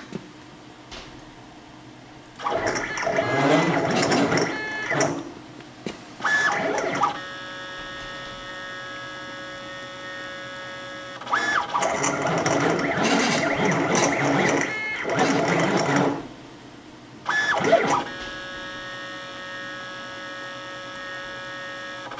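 CNC plasma table running a program: stretches of loud hissing noise alternate with a steady whine of several even tones from the machine's drive motors.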